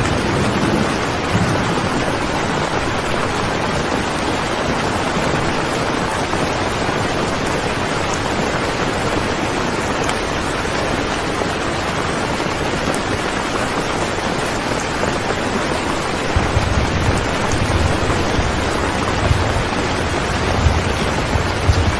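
Steady rain falling, a dense, even hiss. A low rumble joins in during the last several seconds.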